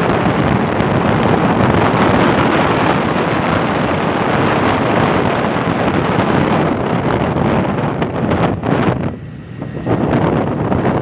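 Wind rushing and buffeting over the microphone of a moving motorcycle, a loud steady roar of noise that dips briefly about nine seconds in.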